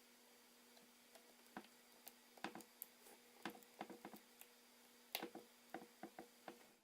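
Faint, irregular small clicks and taps of hand tools and small parts handled on an iPhone 4S during reassembly, over a faint steady hum.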